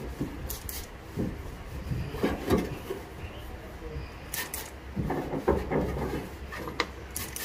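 Hand trigger spray bottle squirting water in short bursts of two or three quick sprays, repeated a few times, with a cloth wiping and rubbing against the painted steel underside of a car hood in between.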